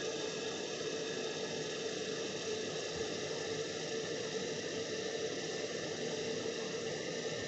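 Electric kettle heating water as it nears the boil: a steady rushing hiss with a faint hum, showing the heating element is working.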